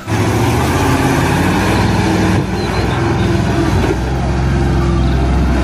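Water tanker truck's diesel engine running under load as the truck drives through deep mud: a steady low engine drone under a loud, noisy rumble.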